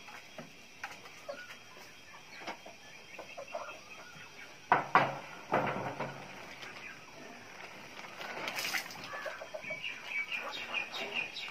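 Chickens clucking, with two sharp knocks about five seconds in that are the loudest sounds. Later, a rustle of plastic sheeting being handled and a quick run of short repeated calls.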